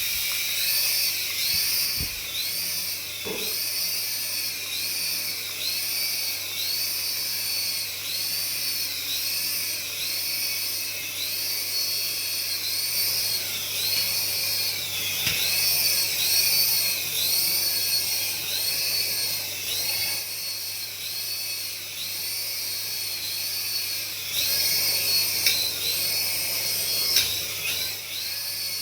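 A small electric motor of a radio-control toy running with a high-pitched whine that wavers in pitch about once a second, over a low steady hum. There are a few brief knocks.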